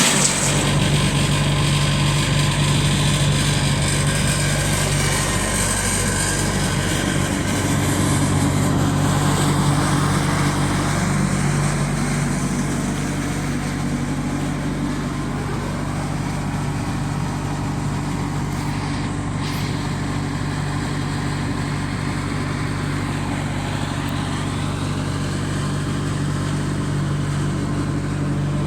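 Wood chipper running steadily, its engine holding a constant pitch. A rougher, hissier noise over the engine in the first several seconds eases off about eight seconds in.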